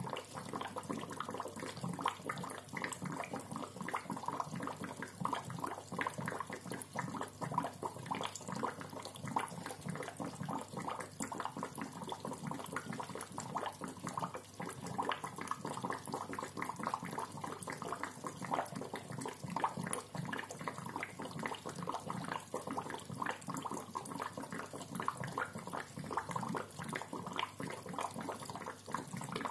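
Aquarium air bubbler gurgling in the tank water: a steady, dense stream of bubbles popping and glugging.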